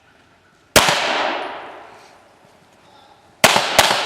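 Pistol shots on a shooting range: one single shot, then two quick shots near the end. Each has a long ringing tail that fades over about a second.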